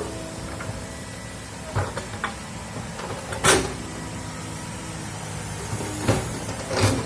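Diesel excavator engine running steadily, with several sharp metallic clanks and knocks from the working machine, the loudest about halfway through.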